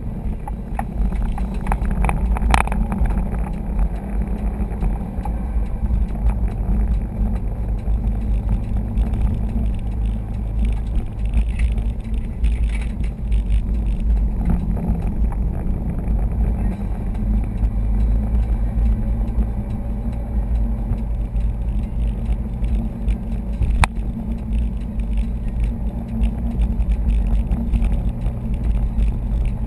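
Cabin noise inside a moving 2011 Subaru STI with the windows closed and the A/C running: a steady low drone of the turbocharged flat-four engine and tyres on the road. Two sharp clicks cut through, one about two and a half seconds in and one near the end.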